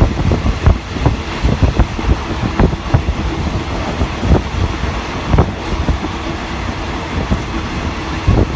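Passenger train running on the rails: a steady rumble and rush of noise with frequent irregular knocks and clanks from the wheels and carriages.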